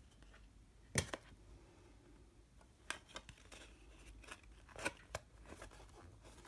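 Hands handling a CD and its cardboard sleeve: scattered sharp clicks and taps as the disc is pressed on its centre hub, the loudest about a second in.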